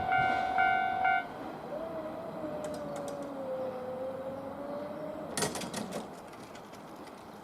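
Japanese railway level-crossing alarm ringing its electronic kan-kan tone about twice a second, then stopping about a second in as the crossing clears. A faint, slightly wavering hum follows for a few seconds, then a short clatter of clicks.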